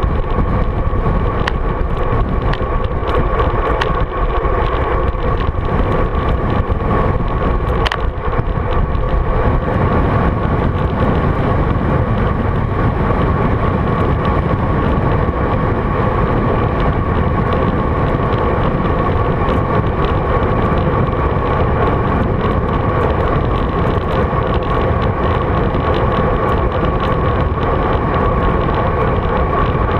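Wind and road noise on a GoPro Hero 3's microphone on a road bike descending at speed: a loud, steady rush with a steady high tone running through it and a few sharp ticks in the first eight seconds.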